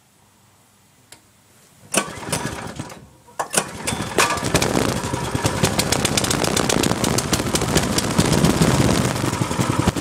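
Baja Warrior mini bike's 196cc four-stroke single-cylinder engine being pull-started on half choke. It sputters about two seconds in, catches at about four seconds, and then runs steadily with a rapid even firing beat.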